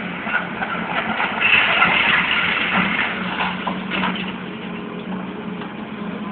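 Heavy demolition machine's diesel engine running steadily, with crunching and clattering of breaking concrete and debris loudest from about one to four seconds in.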